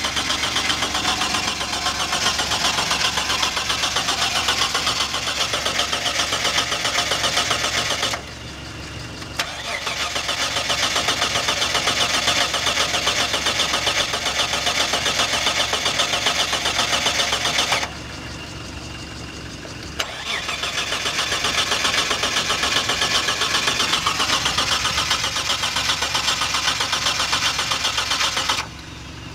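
Mitsubishi Shogun V6 engine cranked by its starter in three long attempts of about eight seconds each, with short pauses between. It turns over steadily but never fires: a turns-over-but-won't-start fault.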